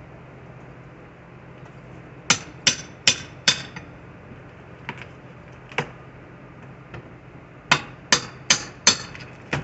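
Hammer blows while old window trim is being knocked loose: two quick runs of four sharp strikes, each run about a second and a half long and the second starting about five seconds after the first, with a few lighter taps between them.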